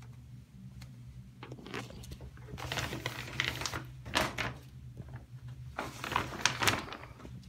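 Clear plastic shower curtain crinkling and rustling in irregular bursts as a cat pushes and shifts against it, over a low steady hum. It starts about a second and a half in and continues in spurts until near the end.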